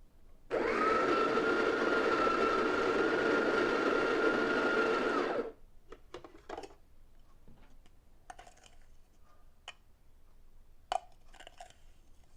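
Breville Smart Grinder Pro burr coffee grinder running for about five seconds to top up a dose of coffee, a steady motor whine that rises to pitch as it starts and stops abruptly. A few light clicks and taps follow.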